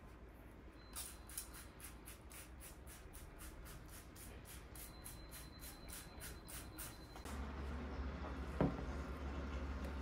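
Plastic trigger spray bottle misting seedlings: a quick run of short sprays, about four a second, that stops about seven seconds in. A single soft knock follows near the end.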